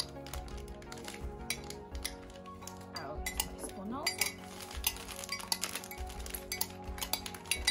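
Light clinks and taps of a metal spoon and small plastic cups being handled, over steady background music.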